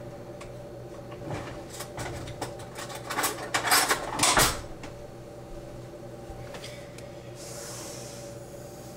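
A run of knocks and clatter of household objects being handled, loudest around the middle, over a steady low hum. A short hiss follows near the end.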